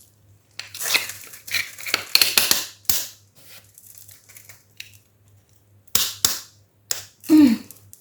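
Hand work setting floor tiles: a run of scraping and knocking noises, then several sharp clicks a few seconds later, with a brief low vocal sound near the end.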